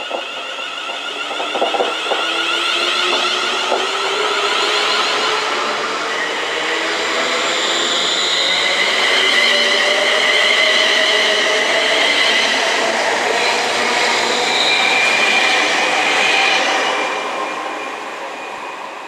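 Class 350 Desiro electric multiple unit passing close by, its traction motor whine rising slowly in pitch over the rail noise. A couple of wheel clicks come about two and four seconds in, and the sound fades near the end as the train clears.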